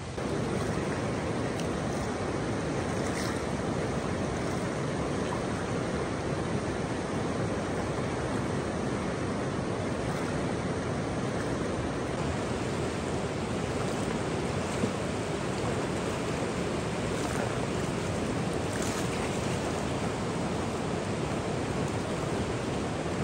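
River rapids: fast white water rushing over rocks, a steady, even wash of water noise that comes in about half a second in.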